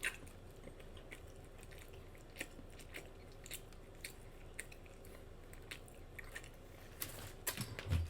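Close-miked chewing and mouth smacking on a bacon cheeseburger: soft wet clicks scattered throughout, with a cluster of louder ones near the end.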